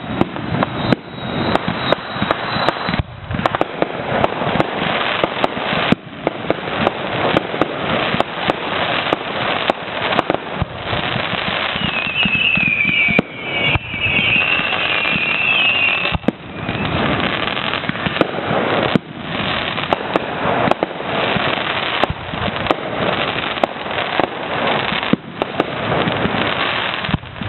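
Fireworks display: a steady run of aerial shells bursting and crackling, one bang after another. A high wavering whistle is heard for a few seconds midway.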